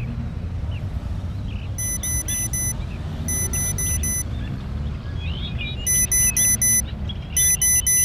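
Atmospheric intro to a heavy rock track: a steady low rumble under four short groups of rapid electronic beeps, like an alarm, with faint chirps.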